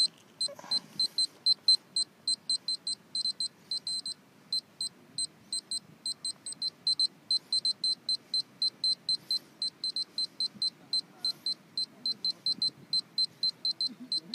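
Polimaster personal radiation dosimeter sounding short high-pitched beeps at uneven intervals, a few a second, as it counts radiation close to the soil. Its display reads about 0.25 to 0.30 µSv/h.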